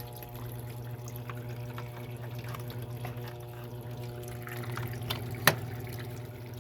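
Electrolux 6 kg washing machine washing towels: water splashing and pouring in the drum over a steady low hum. One sharp click about five and a half seconds in.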